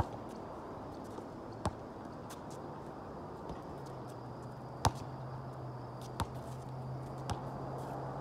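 A basketball striking the court and hoop: a handful of sharp, separate impacts a second or two apart, the loudest a little under five seconds in, over steady outdoor background noise. A low steady hum joins about four seconds in.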